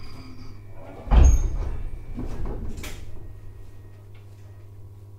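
Passenger doors of an Abukuma Express AB900 series railcar opening at a station stop: a sudden loud rush and sliding rumble about a second in, a second slide and a sharp knock near three seconds in, over the steady low hum of the stopped train's equipment.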